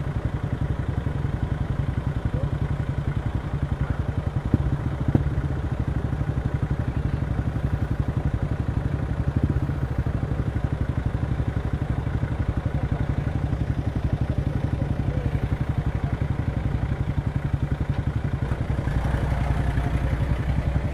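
Small single-cylinder motorcycle engine running steadily, with a couple of light knocks about four and five seconds in and a little more engine noise near the end.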